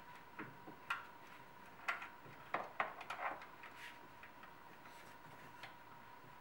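Scattered, irregular light clicks and taps of a T30 Torx bit and driver working a screw out of the DISA valve on a BMW E46 engine.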